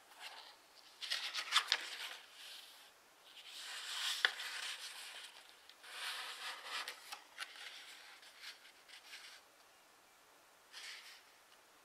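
A sheet of origami paper being handled, folded and creased by hand: soft rustling and rubbing in several bursts, with a couple of sharp crackles as the folds are pressed flat, and one short rustle near the end.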